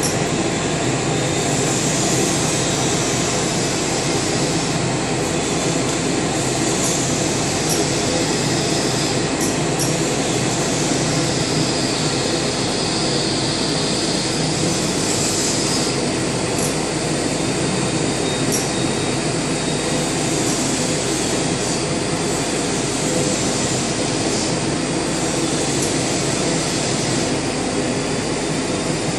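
Pick-and-place assembly machine running: belt conveyors and Ezi-Servo gantry axes make a steady mechanical noise, with sharp clicks of pneumatic actuators now and then.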